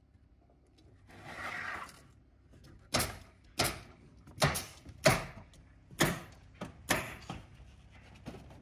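A brief scraping rush, then a run of about seven sharp knocks, spaced from about half a second to a second apart: nailing into the wood of the roof framing and sheathing.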